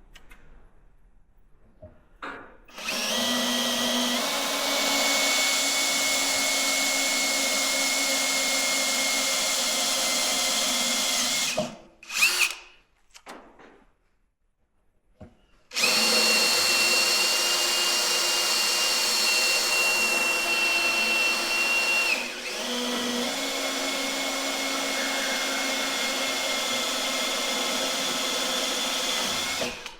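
Electric drill boring holes through a wooden whisky barrel: a steady motor whine for about nine seconds, a short burst, then a second long run of about fourteen seconds whose pitch shifts partway through.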